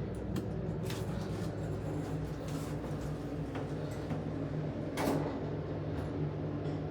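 Passenger elevator car travelling: a steady low hum with a few faint clicks, and a brief clunk about five seconds in.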